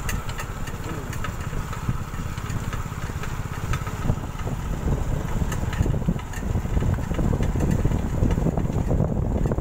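Small motorcycle engine running steadily while towing a metal-framed cart, with frequent short rattles. The engine is fed with gas through a homemade water trap and air filters. It gets a little louder in the last few seconds.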